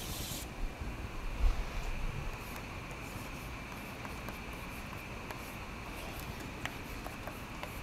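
Quiet classroom room tone: a steady hiss and hum with faint pen-on-paper writing sounds and scattered small clicks as students copy into their notebooks. A few soft bumps come about one to two seconds in.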